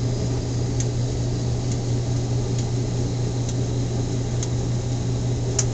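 Maytag washing machine running in its spin cycle, still spinning up toward full speed: a steady electric-motor hum with a faint tick about once a second.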